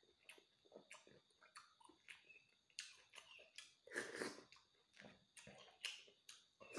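Close-up eating sounds: soft wet chewing and lip-smacking with small clicks, and a louder slurp about four seconds in as broth is sipped from a spoon.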